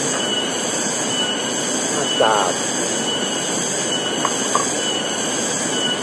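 Steady rush of water over the rocks of a forest stream, with a short trilled call about two seconds in.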